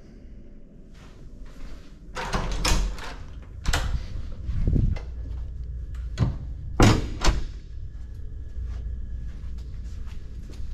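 Wooden room door being unlatched and opened: a run of sharp clicks and knocks from the lever handle, latch and door, the loudest about seven seconds in, followed by fainter ticks.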